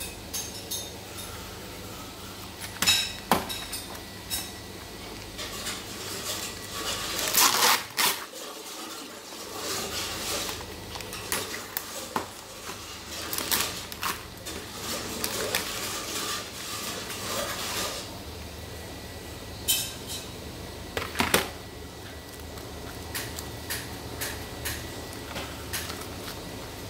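Plastic food packaging being handled: a black plastic microwavable meal tray clicking and knocking, with crinkling from its plastic film lid and wrapper. A few louder knocks stand out, the loudest about a third of the way in and again later.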